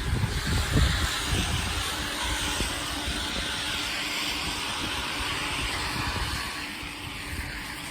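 Pressure washer running, its water jet hissing steadily against concrete over the low hum of the machine, easing slightly in level near the end.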